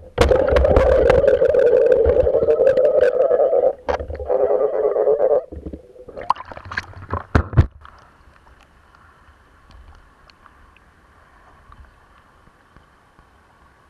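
Water rushing and gurgling against a camera filming underwater, loud and muffled, with sharp clicks and knocks for about five seconds; after a few more clicks it drops to a quiet steady hum.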